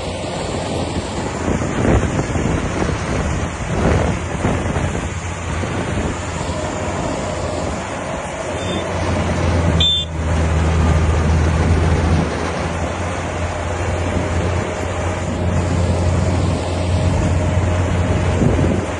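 Kubota crawler rice combine harvester's diesel engine running steadily under load as it harvests. A deeper steady hum swells in and out during the passage.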